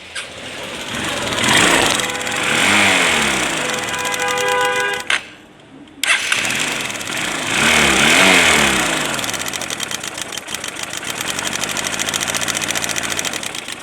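Honda CB Trigger's single-cylinder four-stroke engine running and being revved, with a short stop about five seconds in before it runs again, revs and settles to a steady run. The engine sounds bad, which the mechanic traces to a loose, worn timing chain whose tensioner no longer holds it.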